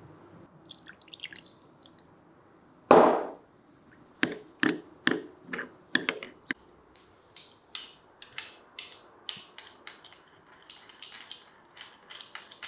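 Spoon knocking and clinking against a bowl while mixing tomato paste with water. There is one loud knock about three seconds in, then a run of sharp taps that grow lighter.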